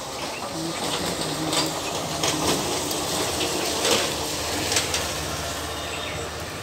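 Water poured out of a small hand-held metal pot, splattering onto leaves and the ground below, with a few sharp clicks.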